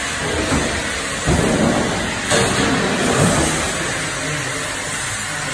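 Sheet-metal duct line autoseamer running: a steady machine noise with three heavier knocks about a second apart in the middle as a metal sheet feeds through.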